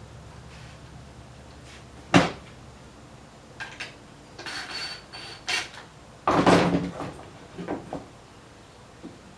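Knocks and clatter of wooden Ferris wheel parts being handled while a side piece is set on the base to be screwed on: a sharp knock about two seconds in is the loudest, followed by several short scraping bursts over the next few seconds.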